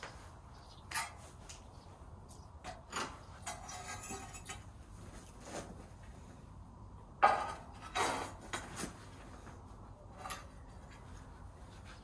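Scattered clinks, knocks and scrapes of tools and materials being handled for tiling work, the loudest a sharp knock about seven seconds in, followed by another about a second later.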